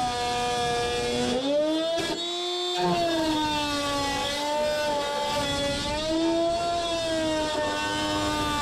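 Dremel rotary tool with a cutting wheel running and cutting into aluminum gutter. Its high motor whine sags in pitch and recovers several times as the wheel bites and eases off, over a gritty grinding hiss.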